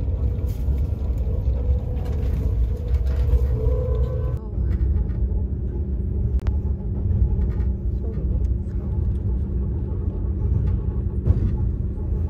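Moving passenger train's running noise heard inside the carriage: a steady low rumble. About four and a half seconds in, the sound changes and a steady hum comes in under the rumble.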